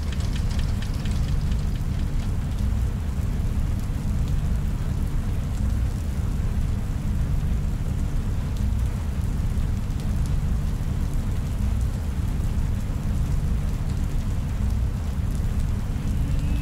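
Steady, dense ambient drone: a deep rumble with a fainter rain-like hiss above it, a sci-fi room ambience bed. A few faint clicks sound in the first second.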